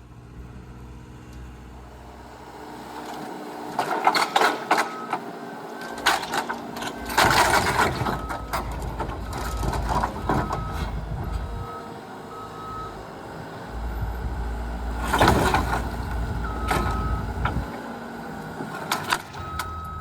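A heavy machine's engine running at a low rumble, its reversing alarm beeping in short repeated tones. Three loud crashes come from the wooden shed frame being pulled down.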